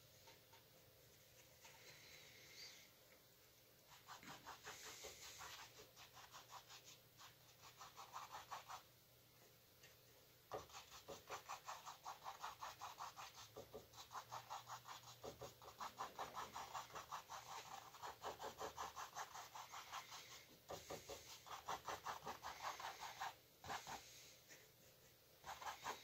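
Paintbrush dabbing and scrubbing paint onto a stretched canvas: quick, faint scratchy strokes at about five a second, in runs of several seconds with short pauses between.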